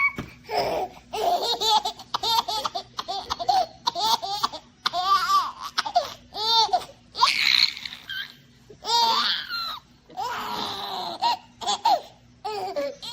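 A baby laughing hard, in repeated bursts of belly laughter with short breaths between.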